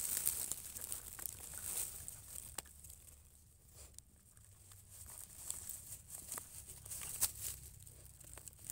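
A puppy gnawing and chewing on something held between its paws while lying in dry straw, giving irregular crunching clicks and the crackle of dry stalks shifting under it.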